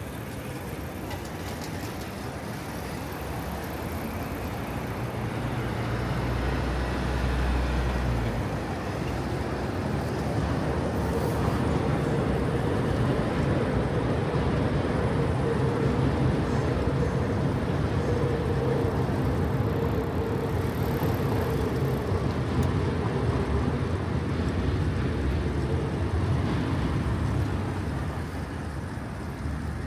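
Road traffic: motor vehicles passing close by, the noise swelling a few seconds in and easing off near the end. A low engine hum comes through about six to eight seconds in, and a steady droning tone runs through the middle.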